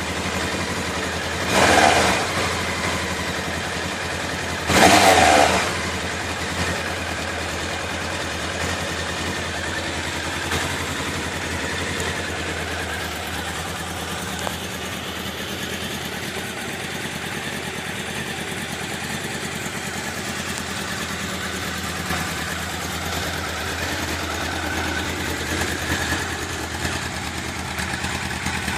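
1991 Honda CBR1000F's inline-four engine idling through its standard exhaust, with two short throttle blips in the first six seconds before settling back to a steady idle.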